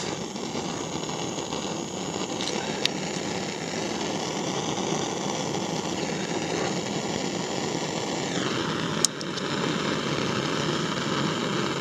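Propane torch with a wide flame-spreader tip burning steadily: a continuous hiss. Its tone shifts slightly a little past eight seconds in, and there are a couple of faint clicks.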